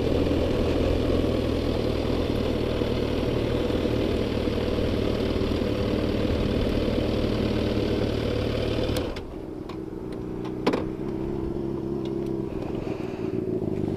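Motorcycle engine running steadily at road speed with wind noise over it. About nine seconds in, the wind and engine drop away suddenly and the engine settles to a quieter, steady idle, with one sharp click shortly after.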